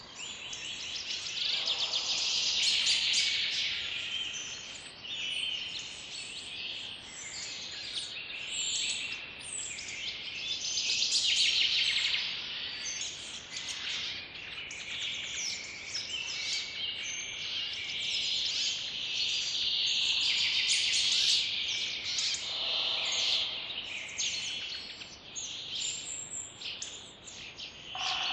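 Dense chorus of many birds singing at once: overlapping high chirps, twitters and trills that swell and ebb. Twice a lower, fuller call sounds beneath them.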